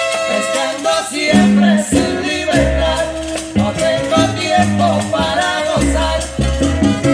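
1970s salsa recording played from a vinyl LP at 33 RPM: an instrumental passage with a moving bass line and maracas, no singing.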